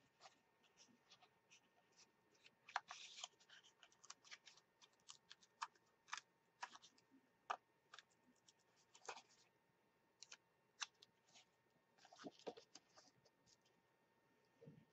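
Faint paper handling: a sticker being picked and peeled from its backing sheet with fingernails, then pressed onto a padded paper mailing envelope, giving scattered small clicks and scratches.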